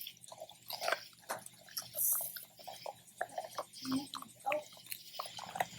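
Puppies chewing and licking raw beef oxtail: irregular wet smacking, gnawing and clicking of teeth on meat and bone.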